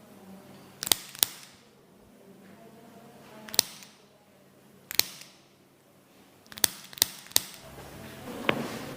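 Loud, sharp joint cracks from chiropractic back adjustments: seven pops in all, a pair about a second in, two single ones a few seconds apart, then three in quick succession near the end.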